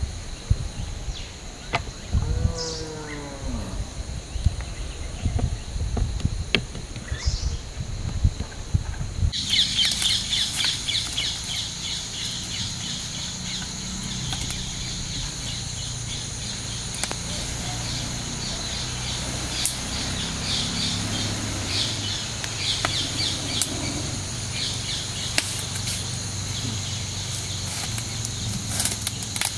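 Hands patting and pressing dough on a wooden board make irregular dull thuds, with a short falling animal call about two seconds in. About nine seconds in, a steady pulsing insect chorus starts suddenly. With it come the low rumble and scattered crackles of a small wood fire.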